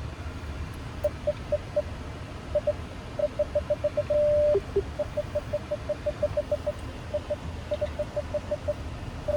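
Skoda Kodiaq's parking sensors beeping in rapid runs of short beeps as the car creeps past obstacles on both sides, changing to a continuous tone a little after four seconds in (an obstacle very close) and then two lower beeps. A low engine and cabin hum runs underneath.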